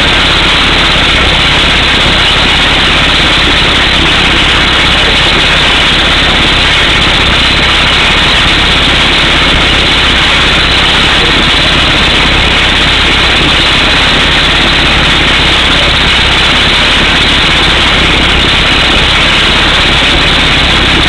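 Air hammer drilling down through solid rock for a power-pole hole, its exhaust air blasting rock dust out of the hole: a loud, steady noise with no letup. The drill truck's engine runs underneath.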